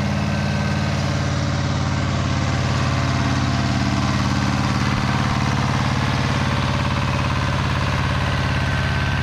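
Two-cylinder engine of a Pasquali 425 compact 4x4 tractor running steadily at an even speed.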